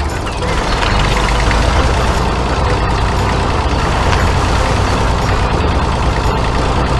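Heavy vehicle engine running steadily, growing louder about a second in and holding there.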